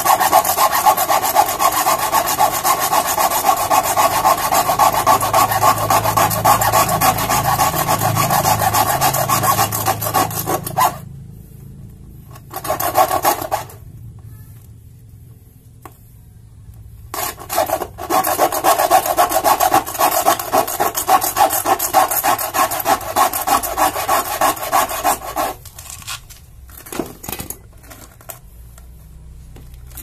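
Hacksaw blade sawing into the bead of a used motorcycle tyre, through rubber to the steel bead wire inside, in rapid back-and-forth rasping strokes. The sawing stops after about eleven seconds, with a short spell near thirteen seconds. It picks up again near eighteen seconds and stops around twenty-five seconds, leaving a few scattered scrapes.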